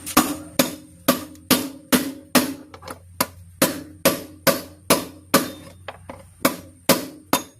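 Steady hammer blows, about two a second, each ringing briefly: a front-load washing machine's worn drum bearing being hammered out.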